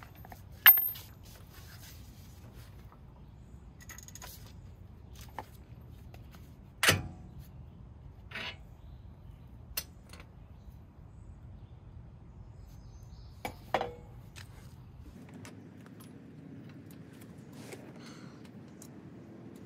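Metal hand tools clinking and knocking against the strut and steering-knuckle bolts: a handful of separate sharp metallic clicks a few seconds apart, the loudest about a second in, over a low steady background.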